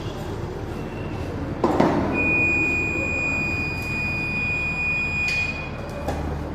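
A sharp knock, then a steady, high-pitched electronic beep lasting about three and a half seconds, with a click near its end.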